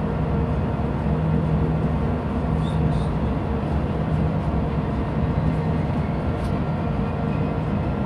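Ship's main engine running steadily at slow ahead: a low, even drone with a steady hum.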